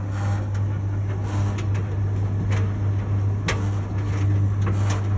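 Samsung clothes dryer running with a steady low hum and irregular sharp clicks and knocks every second or so: the abnormal noise the owner reports as a continuing problem with the machine.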